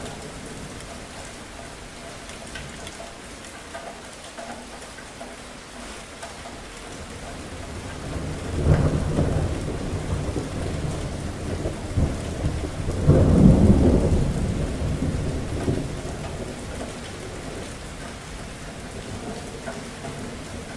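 Steady rain with thunder rumbling twice, about eight seconds in and again, louder, about thirteen seconds in, each swelling and fading over a couple of seconds.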